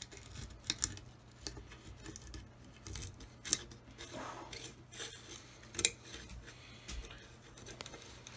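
Small hand-cranked drain snake being fed down into a sink drain: light scraping and scattered sharp clicks, with a few louder clicks spread through.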